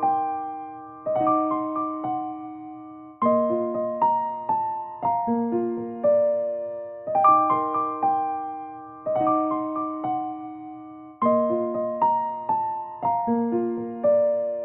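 Background music: a gentle electric piano playing a slow, repeating melody of struck notes that ring and fade.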